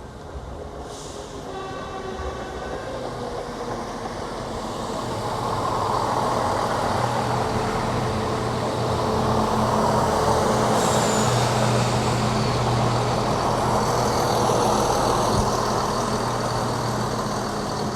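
A train running through the station, its rumble and engine hum growing louder over several seconds, holding steady, then easing slightly near the end. A short, distant horn-like tone sounds about a second in.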